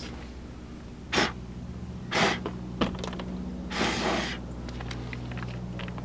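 Short rustling, breath-like bursts about a second in, two seconds in and near four seconds, with a light click in between, as a keyless RV door lock is handled and pushed into its cut-out in the door. A steady low hum runs underneath.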